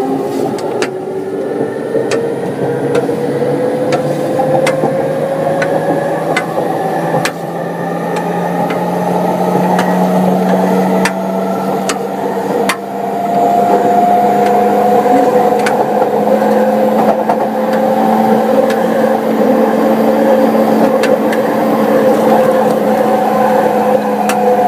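Running sound of a JR Yamanote Line E231-500 series electric train: the traction motors' VVVF inverter whine rises in pitch as the train picks up speed, then levels off after about thirteen seconds, with rail-joint clicks over a steady rumble.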